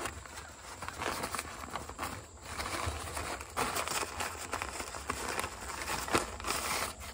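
Plastic wrapping and a fabric storage bag rustling and crinkling as they are handled, in an irregular run of crackles over a low steady rumble.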